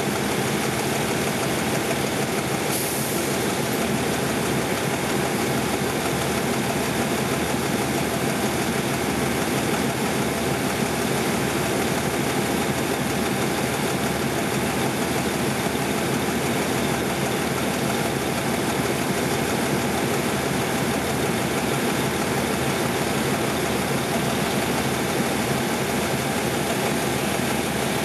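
Diesel locomotive engine running steadily at low revs, an even drone with no build-up in loudness. A brief hiss sounds about three seconds in.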